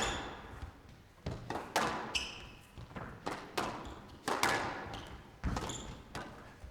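Squash ball struck back and forth in a rally: sharp knocks of the ball off rackets and the court walls in quick succession, each with a short echo, and a few brief high squeaks of court shoes on the floor.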